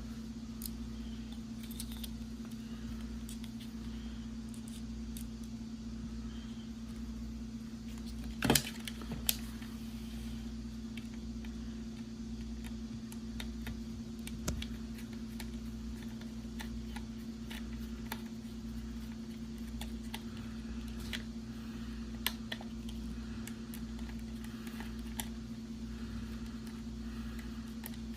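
Small metallic clicks and taps of a precision screwdriver's tip working tiny screws in and out, with two sharper clicks about eight and nine seconds in, over a steady low hum.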